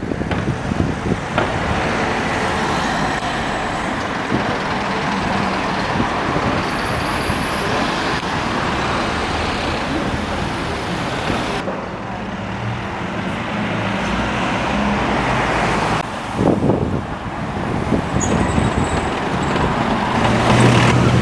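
Road traffic with a heavy diesel vehicle's engine running close by, over steady tyre and traffic noise; the sound changes abruptly about halfway through and again about three-quarters of the way through.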